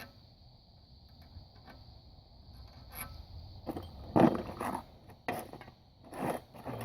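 Metal-on-metal scraping and rattling as Allen bolts are fitted back into the truck's front hub, in several short bursts in the second half, the loudest about four seconds in.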